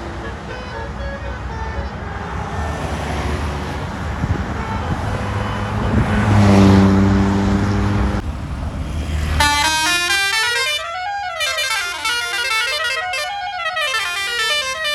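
Bus engine and traffic noise with short horn tones, then a deep air-horn blast of about two seconds in the middle. About two-thirds of the way in, a telolet basuri multi-trumpet bus horn starts playing a melody of stepped notes that rise and fall.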